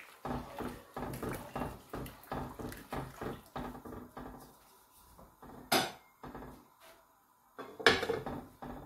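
Wooden spoon stirring rice in a pot of water, knocking against the pot's sides about three times a second. Then comes a single sharp knock a little before six seconds in, and the pot's lid is set on with a clank near the end, the loudest sound.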